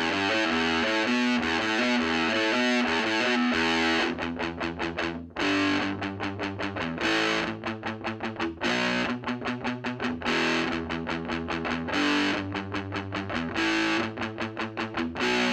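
Electric guitar played through the Ever Play RG60 solid-state amp's overdrive channel, with a distorted tone. It starts with a few seconds of continuous riffing, then turns to fast, choppy chugging broken up by ringing held chords.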